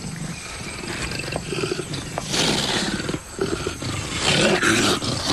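Male and female leopards growling and snarling at each other, as the male asserts his dominance over the female at their first encounter. The growls grow louder about two and a half seconds in and again near four seconds.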